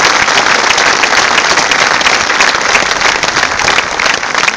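Large crowd applauding: dense, loud clapping from many hands.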